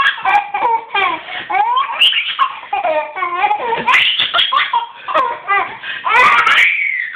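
Baby laughing in runs of short, high-pitched giggles, with a longer laugh near the end that falls in pitch.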